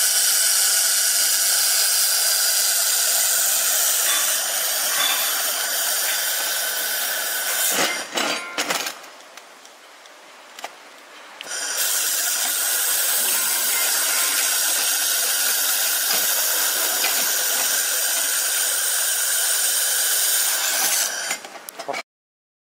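Handheld fiber laser welder running a weld around a metal tube on a metal plate: a loud, steady hiss and crackle with a steady whine in it. It stops for about three seconds some eight seconds in, starts again, and cuts off suddenly shortly before the end.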